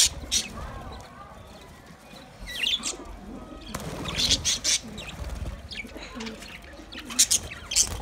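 Budgerigars chirping: short clusters of high, quick chirps a second or two apart.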